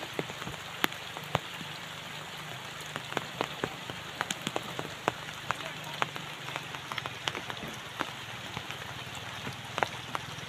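Rain falling steadily: an even hiss with many irregular sharp taps of drops striking umbrellas.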